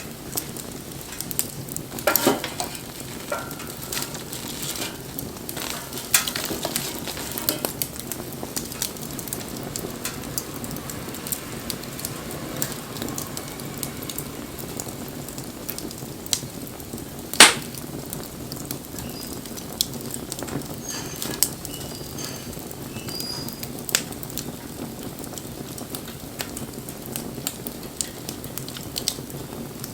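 Wood fire crackling: a steady hiss with scattered sharp pops, a cluster of them about two seconds in and one loud pop a little past halfway.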